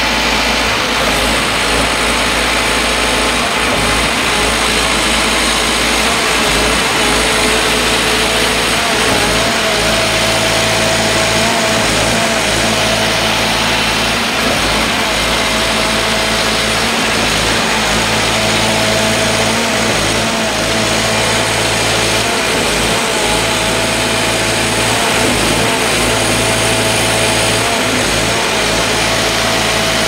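Diesel engines of a trailer concrete pump and of a concrete mixer truck discharging into its hopper, running steadily while concrete is pumped. A wavering whine comes and goes from about nine seconds in.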